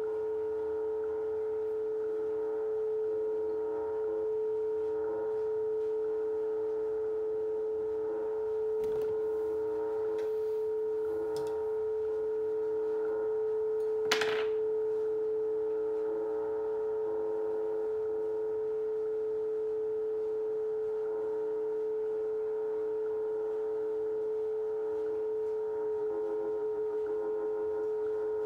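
CW beat tone from an Icom IC-730 HF receiver tuned to the WWV 10 MHz carrier: a steady, mid-pitched whistle at one pitch, with a single sharp click about halfway through. Near the end the tone starts to pulse slightly, the beat against the Tektronix 180A's crystal oscillator as its trimmer is brought toward zero beat.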